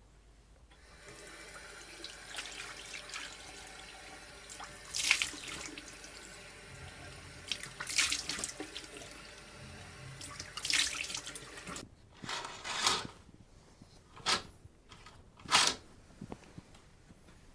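Water running into a container, with several short, louder bursts of splashing and knocking through it; the steady flow stops about twelve seconds in, leaving separate bursts.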